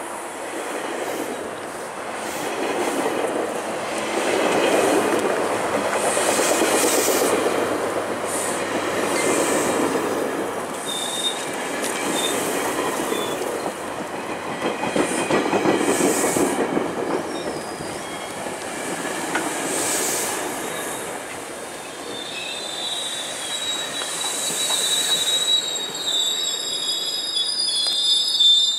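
GO Transit bilevel passenger coaches rolling past and slowing to a stop, with a steady rumble that swells and fades every few seconds and the clicking of wheels over rail joints. High squeals from the braking wheels come in briefly about a third of the way through and then hold from about three-quarters of the way on.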